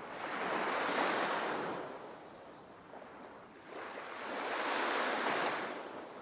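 Sea surf: two waves wash in one after the other, each rising and falling away over about two seconds, the second starting about halfway through.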